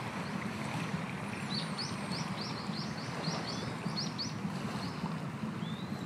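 A small bird singing a rapid run of about a dozen short, high, rising chirps, roughly four a second, over a steady outdoor rush of wind or surf.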